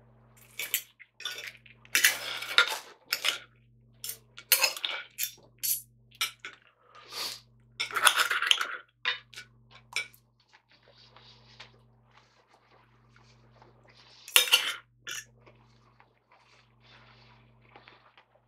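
Steel knife and fork scraping and clinking on a white china plate while cutting up a fried breakfast. The clinks and scrapes come irregularly, busiest in the first half, with one loud clatter about fourteen seconds in and softer scraping after it.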